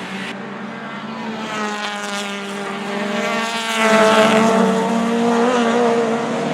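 Racing car engine running at speed as the car approaches and passes, loudest about four seconds in.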